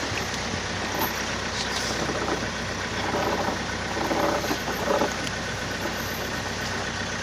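Tour boat's engine running steadily, a low even drone, with faint voices in the middle.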